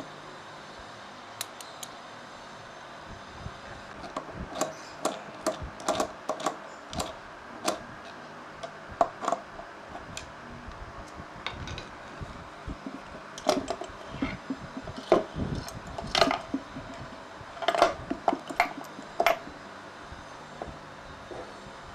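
Irregular light clicks and knocks of metal carburetor parts being handled and set down on a wooden table, heaviest in the second half, over a steady background hiss.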